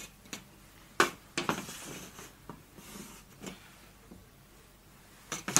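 A ruler knocks against a chalkboard, then chalk scrapes along the board for about two seconds as a line is drawn beside it, with a few more knocks near the end.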